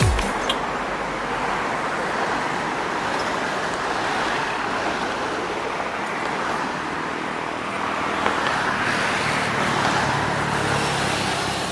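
Road traffic: a steady rush of tyre and engine noise from passing vehicles, with a vehicle's engine growing louder between about eight and eleven seconds in.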